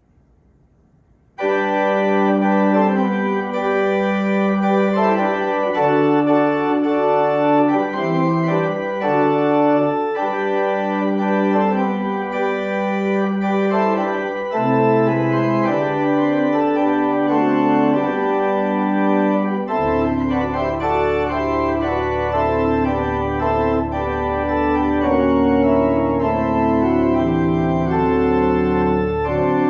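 Church organ playing the closing postlude of the service. It comes in suddenly about a second and a half in with chords of held notes, and a low sustained pedal note is added about two-thirds of the way through.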